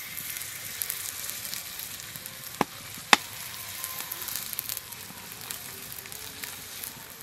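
Egg-and-flour paratha batter sizzling in hot oil as it is ladled onto a black iron griddle (tawa) and spread into a round. Two sharp clicks come about half a second apart near the middle.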